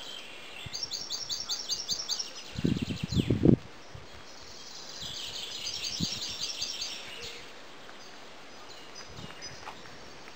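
Small songbirds singing in a cedar grove: quick trills of short high chirps, repeated in bouts, with one falling note about three seconds in. The loudest sound is a brief low rumble just before that.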